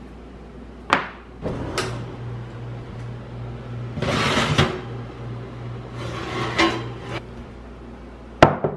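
Kitchen handling sounds: clacks of a drawer being shut and the oven door opening, a scrape as a ceramic baking dish is pulled across the oven rack, and a sharp knock near the end as the dish is set down on a cork trivet. A low steady hum runs through the middle.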